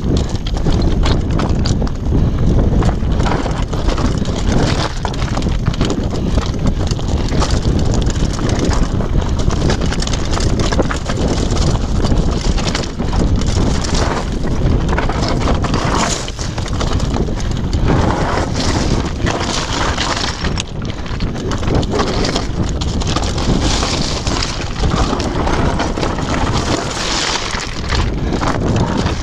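Downhill mountain bike clattering continuously over a rough, rocky trail: tyres crunching over loose stones and the bike's frame and parts rattling with each hit, with wind rumbling on the camera microphone.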